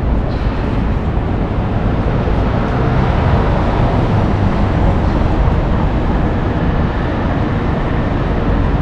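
Paris Métro train running: a loud, steady noise that holds level throughout, without distinct clicks or changes.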